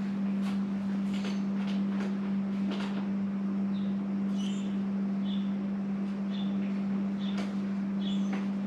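Steady low hum under light clicks and taps as small windscreen fittings are handled. From about four seconds in, a short high chirp repeats roughly once a second.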